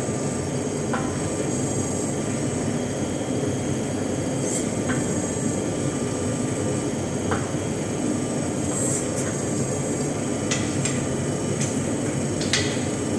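Steady roar of blacksmith shop equipment running, with a few light metallic clicks and taps scattered through it.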